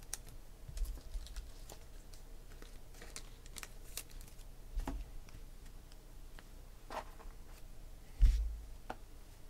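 Trading cards being handled and set down on stacks on a table: scattered light clicks and taps, with one dull thump near the end.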